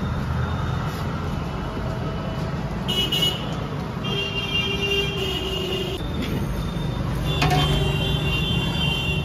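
Street traffic: a steady low engine rumble, with a high horn-like tone sounding for about two seconds around four seconds in and again from about seven and a half seconds in.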